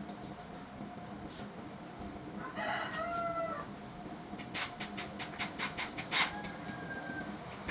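A rooster crows once, about a second long, roughly three seconds in. It is followed by a quick run of about nine sharp clicks or taps.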